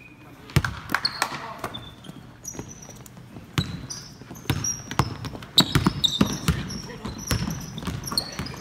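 Basketball dribbled on a hardwood gym floor in irregular bounces, with short high sneaker squeaks as players move.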